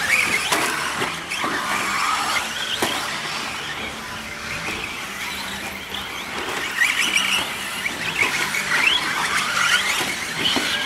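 Several radio-controlled short-course 4x4 trucks racing on dirt, their motors whining and sliding up and down in pitch as they speed up and slow down.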